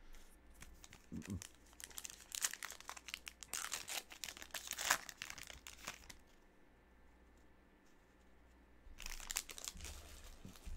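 Foil wrapper of a 2020 Topps Allen & Ginter trading-card pack crinkling and tearing as it is ripped open: a few seconds of dense crackling, then a lull, and a shorter burst of crinkling about nine seconds in.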